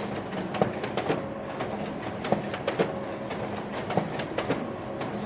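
Office ambience: irregular sharp clicks and knocks over a steady background hum.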